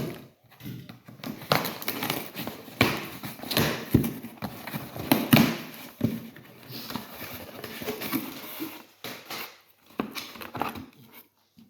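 Product packaging being opened and handled: irregular rustling and scraping, with scattered knocks and clicks.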